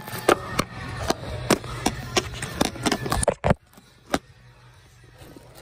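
Handling noise from a phone being gripped and positioned: a quick, uneven run of knocks and rubs right on the microphone, which stops after about three and a half seconds, followed by one more knock.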